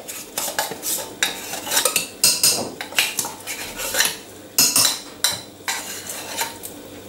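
Irregular clicks, knocks and scrapes as the top of a blender jug is handled by hand; the blender motor is not running.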